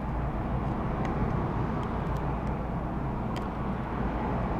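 Steady background hiss with a low hum, with a few faint small ticks about a second in and again past three seconds.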